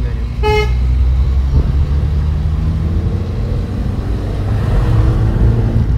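Car cabin sound while driving: steady low engine and tyre rumble, the engine note rising near the end as the car speeds up. A short high beep sounds about half a second in.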